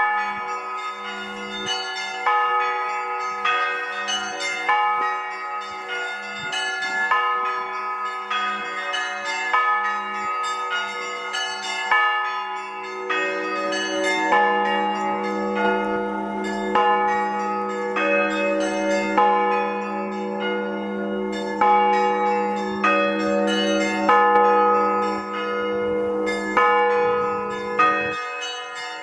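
Russian Orthodox church bells rung together: smaller bells struck in quick, uneven patterns over the hum of a deeper bell. The deep bell swells about halfway through and stops shortly before the end.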